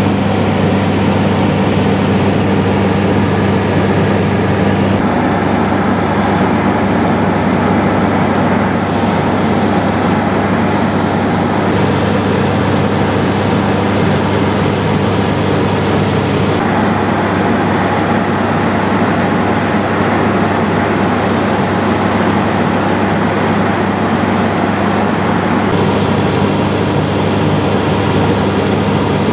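Pioneer 200 light aircraft's piston engine and propeller droning steadily in flight, heard inside the cockpit together with the rush of the airflow. Its tone shifts slightly a few times.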